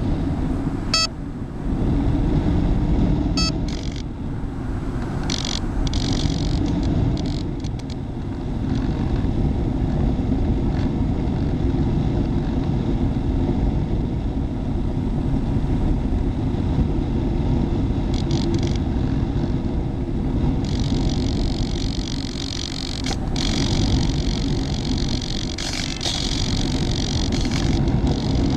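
Model airplane in flight: the high whine of its electric motor and propeller, rising and fading in stretches, over a steady low rumble of wind buffeting the microphone.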